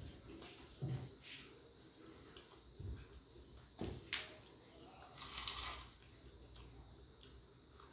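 Steady high-pitched trill of a cricket, with a few soft clicks and crackles of a samosa being broken by hand on a paper plate and chewed.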